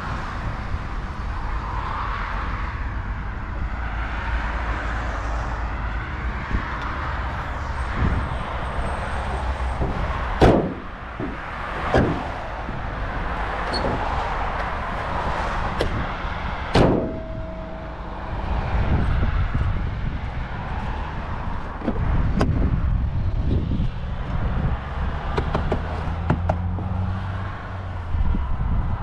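Renault Megane 2's bonnet being shut, with a loud slam about ten seconds in, another about two seconds later, and a third about 17 seconds in that leaves a brief ring. Smaller knocks of the bodywork being handled follow, over a steady low rumble.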